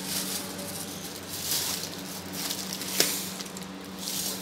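Thin plastic bag rustling and crinkling as hands wrap and press a ball of dough in a steel bowl, with one sharp click about three seconds in. A steady low hum runs underneath.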